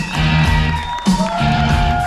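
Loud rock music with guitar, played over a theater's sound system.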